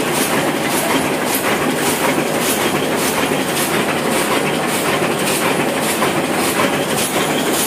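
Old Hashimoto sheetfed offset printing press running, a steady mechanical clatter with a regular click about twice a second.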